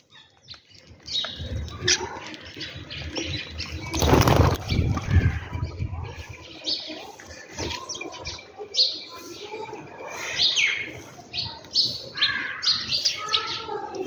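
A flock of small birds takes off in a burst of wing flaps about four seconds in, followed by many short house sparrow chirps.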